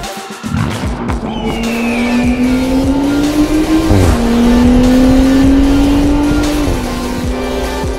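Car engine accelerating hard, its pitch climbing steadily, then dropping sharply at a quick upshift about four seconds in and climbing again before easing off near the end. Music plays underneath.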